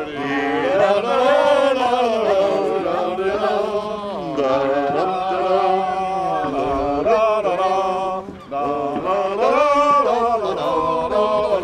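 A group of voices singing a song together, with long held notes that glide up and down.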